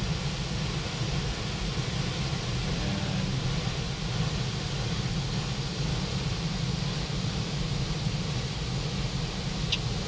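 Waterfall falling into its plunge pool: a steady, even rushing of water, heaviest in the low end.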